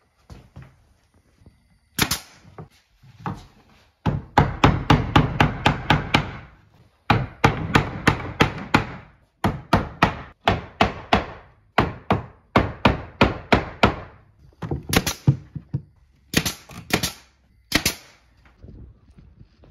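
Hammer tapping pine trim into place through a wooden block, in quick runs of about four blows a second. Near the end come a few sharp single shots with a brief hiss of air from a pneumatic nail gun.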